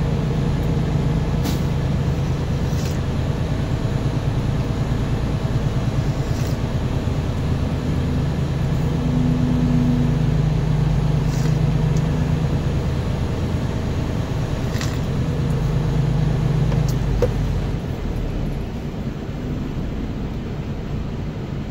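Semi-truck's diesel engine running at low speed, heard from inside the cab, with a few faint clicks. The engine note drops near the end as the truck slows.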